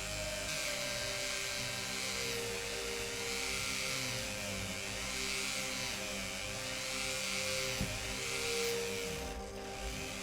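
High-speed motorised wire brush spinning against diecast metal parts, a steady whirring drone with a gritty hiss that wavers as the part is moved against the bristles.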